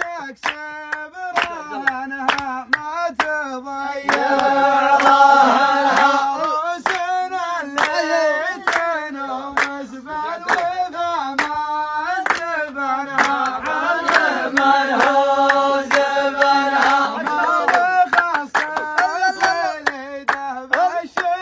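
A voice singing a slow melody with long, wavering held notes, over steady rhythmic hand-clapping at about two to three claps a second.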